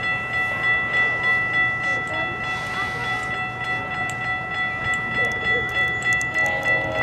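Railway level-crossing warning bell ringing steadily and rapidly as the crossing signals flash. Near the end a GO train's horn begins sounding a held chord as the train approaches the crossing.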